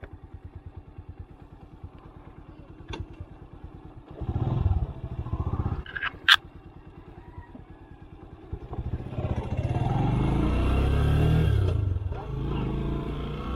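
Skygo Boss 150 motorcycle's engine running at low revs, with a short rev about four seconds in and a sharp click about six seconds in. From about eight and a half seconds it gets much louder as the bike accelerates, its pitch rising, dipping once near the end, then holding steady.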